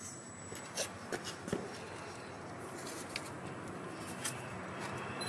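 A few light clicks and taps over faint steady background noise, most of them clustered in the first second and a half, with two more later.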